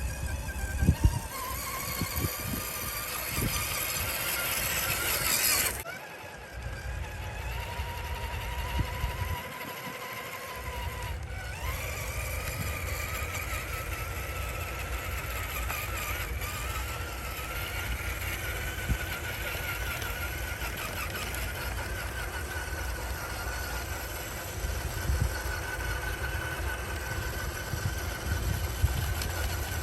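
RC4WD D90 scale crawler truck driving on sand: its electric motor and gearbox give a thin whine that rises and falls with speed, over a steady low rumble. The sound breaks off abruptly twice, about six and eleven seconds in.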